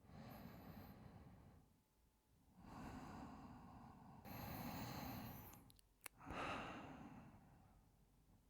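A man's heavy breathing, a sick man's laboured breaths: four slow, long breaths with short pauses between them, and a small click about six seconds in.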